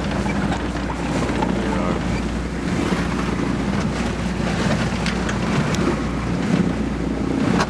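Sailboat under way in a rolling swell: wind buffeting the microphone and water rushing along the hull, over a steady low drone.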